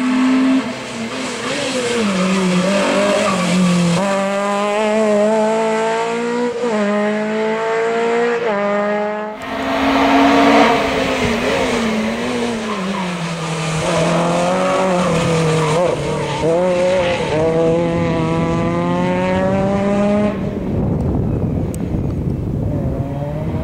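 Citroën Saxo VTS competition car engine, revving hard and falling back again and again as the car accelerates, changes gear and brakes through a slalom course.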